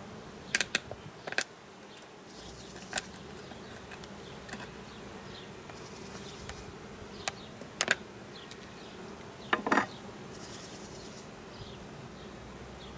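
A package of honeybees buzzing steadily, with a scattering of sharp clicks and knocks from handling the package. The loudest knocks come about eight and ten seconds in.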